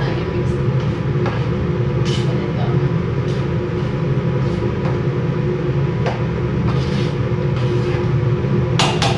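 Kitchen range hood extractor fan running with a steady drone. A spoon scrapes and knocks now and then against a large stainless steel stockpot as rice is stirred, with a quick run of clicks near the end.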